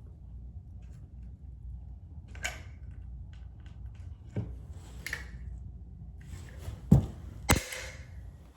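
A few scattered knocks and clicks of handling work, the loudest two close together near the end, over a steady low hum.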